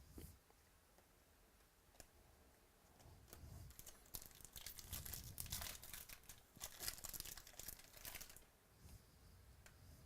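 Plastic or foil trading-card pack wrapper being torn open and crinkled: a burst of crackling that lasts about five seconds in the middle, with a few light clicks of card handling before it.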